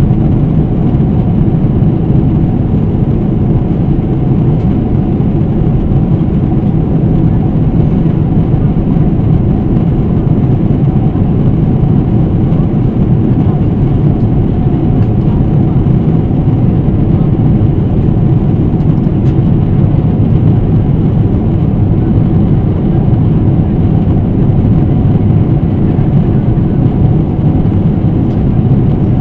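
Steady cabin noise of a Boeing 777-300ER in flight: an even, low drone of engine and airflow noise that does not change.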